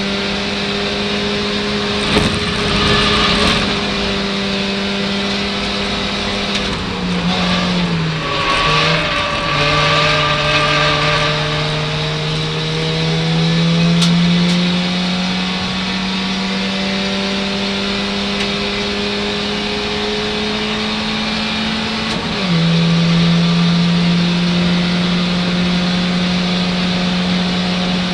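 Ford Fiesta Zetec race car's engine heard from inside the cabin, running hard. About a third of the way through its pitch steps down in gear changes under braking. It then pulls up slowly through a gear until a sudden drop on an upshift about three-quarters of the way through, and starts climbing again.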